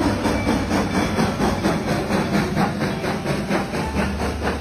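Reading T-1 No. 2102, a 4-8-4 steam locomotive, running past close by: its exhaust beats in a quick, even rhythm over the low rumble of the moving train.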